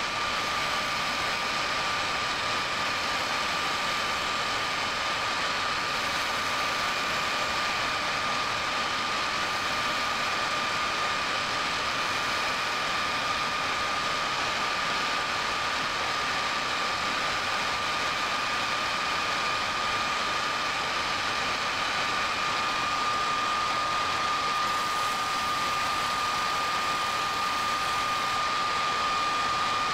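Metal lathe running steadily with a constant whine while a hand-worked radius-turning tool cuts a convex face on the end of a steel part.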